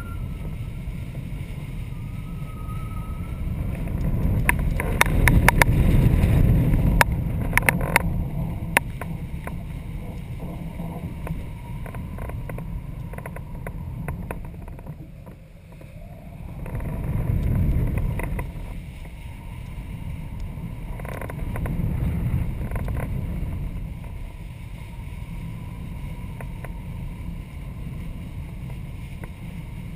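Wind buffeting the microphone of a camera mounted on a kitesurfing kite in flight: a low rumble that swells and fades several times. A burst of sharp rattling clicks comes about five to nine seconds in.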